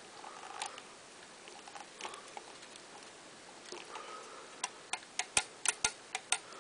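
Faint rustling of fingers working at a small plastic model tractor, then, from about four and a half seconds in, a quick irregular run of about ten sharp clicks and taps of plastic parts being handled.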